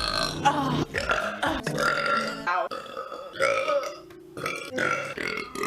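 A woman burping loudly, several burps in quick succession.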